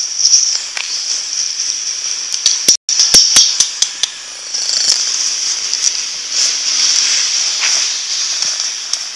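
Young kitten purring steadily close to the microphone, with scattered sharp clicks and rustling, thickest about three seconds in.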